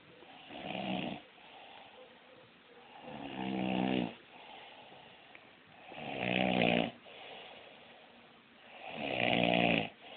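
A man snoring in his sleep: four snores about three seconds apart, each swelling and then cutting off sharply, with fainter breathing between them.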